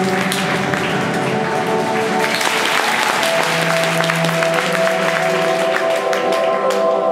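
Figure skating free skate music with held, sustained notes, and audience applause and clapping over it that swells a couple of seconds in and dies away near the end.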